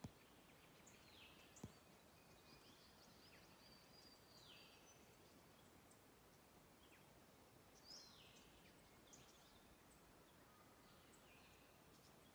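Near silence with a low hiss, over which small birds call faintly: scattered chirps and several downward-sweeping whistles. A single sharp click sounds a little under two seconds in.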